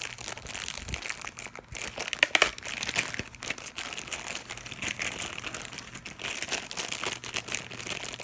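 Packaging crinkling and rustling as a delay pedal is unwrapped by hand, a dense run of small crackles, loudest a little over two seconds in.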